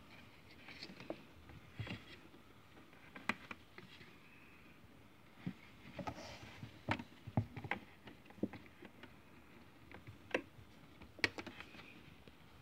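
Scattered light clicks, taps and rustles of hands handling plastic tubing, cables and plastic containers behind a toy washing machine.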